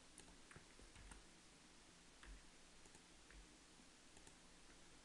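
Near silence with a few faint, scattered clicks of a computer mouse and keyboard.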